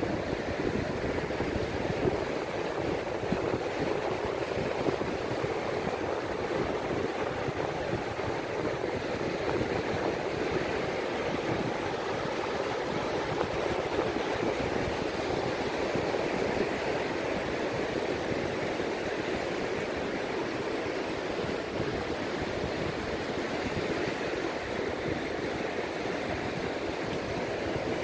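Ocean surf breaking and washing up a sandy beach, a steady rush without distinct single crashes, with wind buffeting the microphone.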